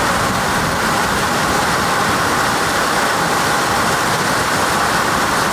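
Heavy rain pouring down onto a swimming pond's water surface, a steady, unbroken rush.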